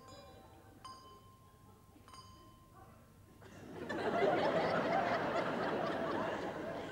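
Two single rings of handheld handbells, a little over a second apart. Then an audience breaks into laughter about halfway through, louder than the bells and lasting to the end.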